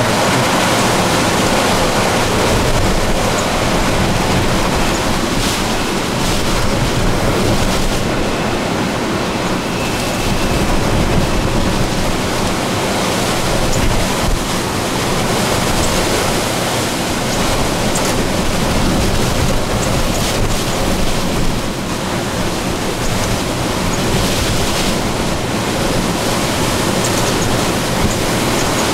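Hurricane-force wind blowing in a loud, steady rush that swells and eases a little, with gusts buffeting the microphone.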